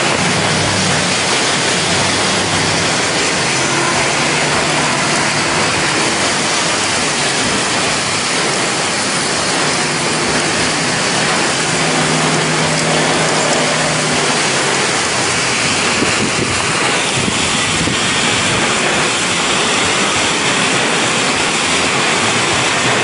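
Heavy downpour in a severe thunderstorm: a steady, dense rush of driving rain and wind.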